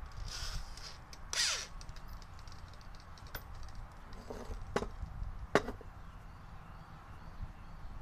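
Tool-handling sounds on a wooden workbench: a couple of brief scraping rustles, then three sharp clicks and knocks, the last the loudest, as a corded electric drill is handled and set down, over a low steady rumble. The drill itself is not run.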